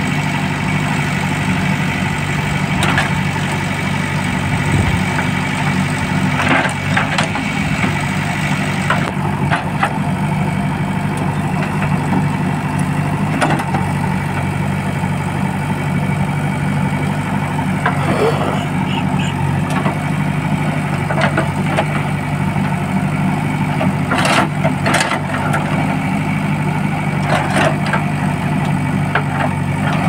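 JCB backhoe loader's diesel engine running steadily under load while the backhoe digs mud, with several short knocks from the bucket and arm.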